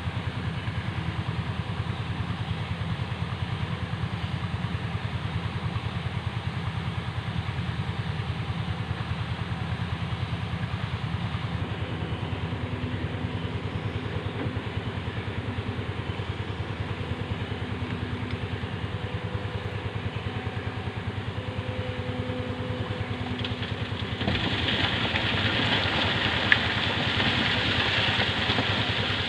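Hydraulic excavator's diesel engine running steadily near idle, with an even, rapid pulse. About three quarters of the way through the sound grows louder and a wider, hissing noise comes in over the engine.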